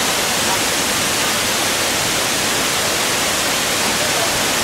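Several waterfalls pouring over rock into a pool: a steady, even rush of falling water.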